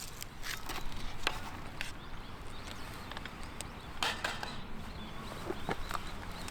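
Irregular sharp clicks with two louder knocks, about a second in and about four seconds in, over a low steady hiss.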